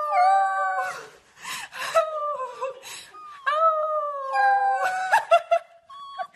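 Corgi puppy howling: several long, high, wavering howls of about a second each, breaking into shorter yelps near the end.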